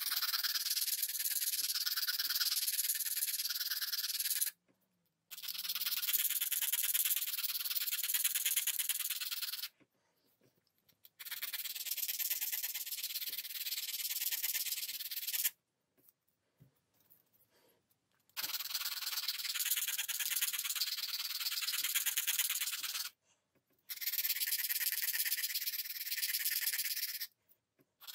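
A small metal tool rasping against the edge of bassoon cane, beveling it for a two-wire reed: a dry, high scratching in several bouts of a few seconds each, with short pauses between.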